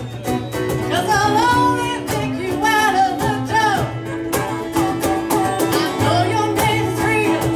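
A live band playing: a woman singing lead over strummed acoustic guitars and a drum kit.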